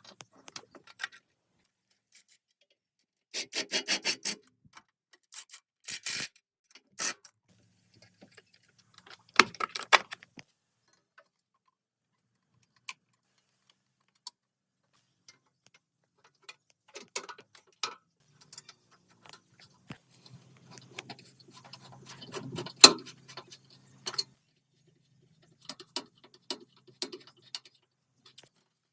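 Scattered small clicks, taps and ticks of metal parts being handled and fitted, in short clusters with quiet gaps between, including a quick run of ticks early and one sharp click about two-thirds through. A faint low hum runs under the clicks for a few seconds near that sharp click.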